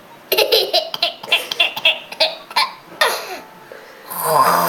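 A boy giggling in short, choppy bursts as he tries to hold back his laughter, then one longer, louder burst near the end.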